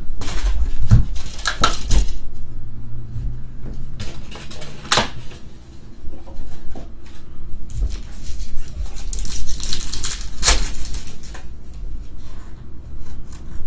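Wrapped trading-card packs being handled and set down on a table, with a run of clicks and knocks at the start and another knock about five seconds in. About nine seconds in, a pack's shiny wrapper is torn open with a crinkling rip that ends in a sharp snap.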